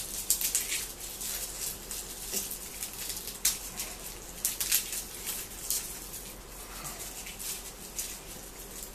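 Garlic being peeled by hand: the dry, papery skins crackling and rustling under the fingers, with irregular small clicks and scratches.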